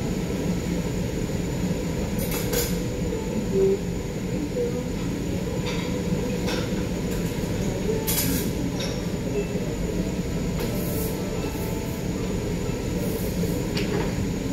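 Steady low rumbling hum, broken by a few short, sharp clicks or clinks: twice about two seconds in, around six and eight seconds in, and once near the end.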